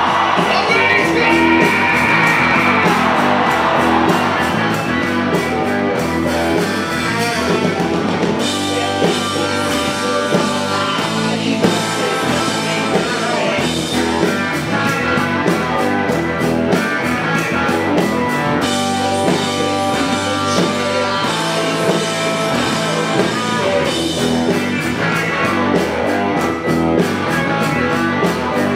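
Rock band playing: electric guitar with a sung vocal, and crowd noise over the first few seconds.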